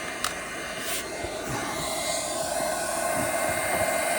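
1300-watt handheld induction heater running with a steady whir that grows louder after the first second or so, heating a seized body bolt to free its thread-locker. A couple of light clicks sound in the first second.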